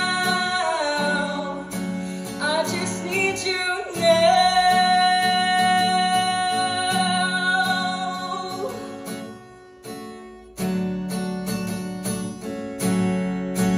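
Acoustic guitar strumming under long, wordless sung notes that slide and waver, then fade out about nine seconds in. After a brief drop in loudness near ten seconds, the guitar strums on alone.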